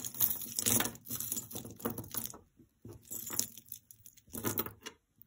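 Loose costume jewelry handled in a pile: beads and small metal pieces clinking and rattling against each other in several irregular bursts, with some rustling.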